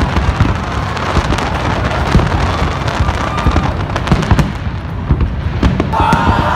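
Fireworks display: a dense, continuous crackle of aerial shells bursting, with low booms underneath.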